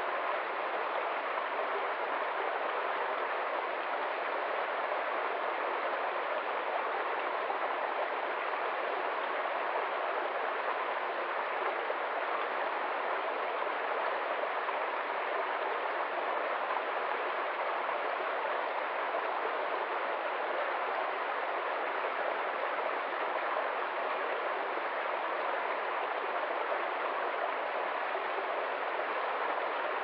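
Shallow woodland stream splashing in small cascades over rocks and a fallen branch: a steady, unchanging rush of water with no deep rumble.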